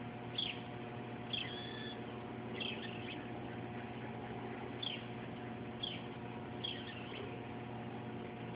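A bird calling: short chirps that slide downward, repeated roughly once a second, with one longer held whistled note about one and a half seconds in, over a faint steady hum.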